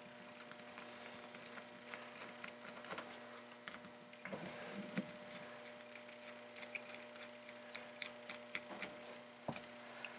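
Faint small clicks and scrapes of a small screwdriver turning out the side-plate screws of a baitcasting reel, metal bit working in the screw heads, with light handling of the reel.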